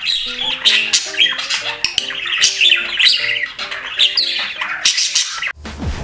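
A budgerigar chattering in quick, high chirps over light background music. About five and a half seconds in the chatter cuts off and bass-heavy music starts.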